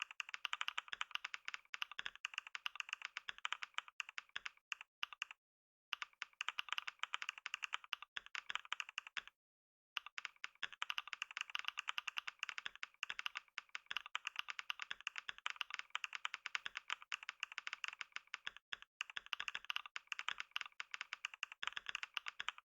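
Computer keyboard being typed on fast and continuously, at about 89 words a minute: a dense run of key clicks broken by two short pauses, about five and nine seconds in.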